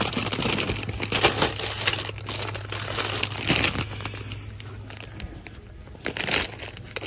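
Plastic candy bag of swirl lollipops crinkling as it is handled, in irregular bursts that are busiest in the first four seconds, with another short burst about six seconds in.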